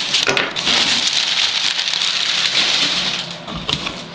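Crumpled brown packing paper rustling and crackling as hands dig through it in a cardboard box, dying down about three seconds in.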